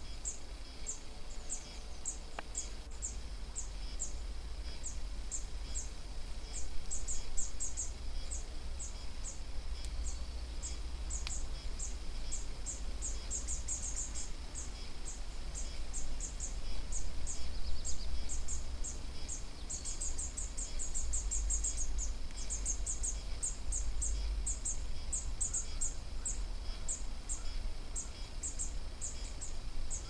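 Insect chirping: short, high-pitched chirps about two a second, with a few quicker runs. Under it is a low rumble that swells twice.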